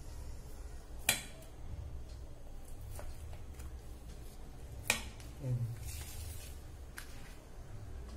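Kitchen knife cutting through a slab of soft, grainy burfi on baking paper. A few sharp taps come as the blade meets the counter beneath, the strongest about a second in and another near five seconds.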